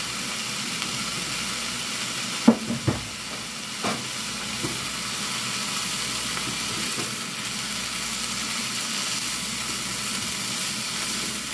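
Kale and broccoli sizzling in a hot skillet as they are stirred with a spatula, just splashed with a little Worcestershire sauce. A few sharp knocks come between about two and a half and four seconds in.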